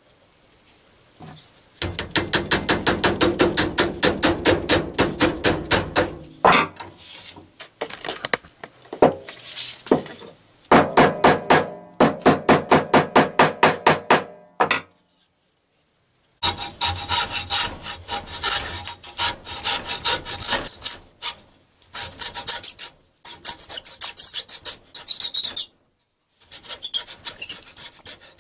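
A hacksaw cutting through the wooden wedge and handle end of a hatchet: quick, even back-and-forth strokes in several runs, with short pauses between them.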